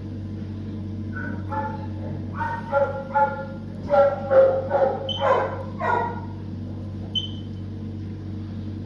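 A dog barking in a series of short, pitched barks over a steady low hum; the barks stop after about six seconds.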